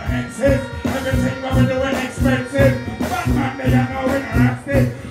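Live dancehall music pumped through a stage sound system: a steady heavy bass beat with a performer's voice on the microphone over it.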